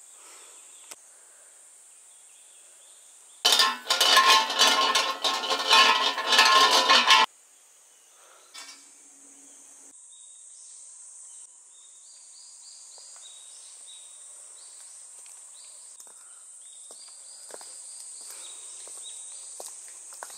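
Shrine bell (suzu) shaken by its rope: a loud metallic jangling that starts a few seconds in, lasts about four seconds and cuts off suddenly. A steady high hum of insects goes on underneath.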